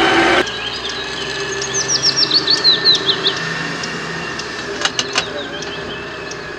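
A bird sings a quick run of about a dozen sharp, down-slurred chirps, starting about a second and a half in and lasting about a second and a half, over a faint steady whine. Before that, a small electric motor's hum cuts off about half a second in, and two sharp clicks come near the end.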